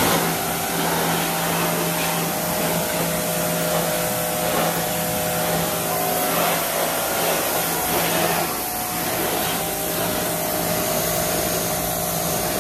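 VAP electric pressure washer running steadily: a motor hum under the hiss of the high-pressure water jet rinsing a motorcycle's engine and underside.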